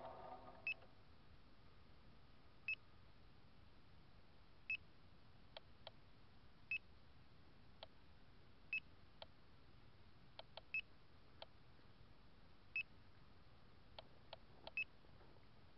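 A landed SK450 quadcopter's electronics giving a short, high beep about every two seconds, with a few fainter clicks in between. Its motors fade out in the first half second.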